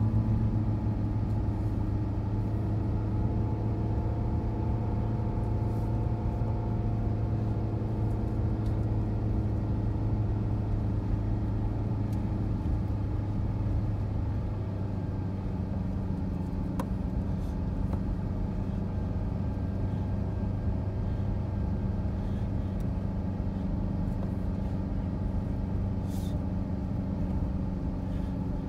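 A car driving on a snow-covered road, heard from inside the cabin: a steady low engine hum with tyre and road noise.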